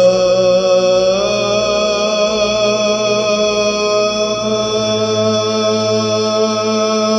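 Byzantine chant in Arabic: a male chanter draws out one long melismatic note on the hymn's closing words 'in Thy Kingdom', the pitch stepping up slightly about a second in. A steady low drone is held beneath.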